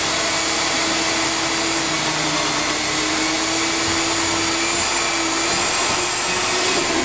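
Rig-mounted electric diamond core drill running steadily, its motor giving a constant hum and whine as the core bit cuts into the concrete wall.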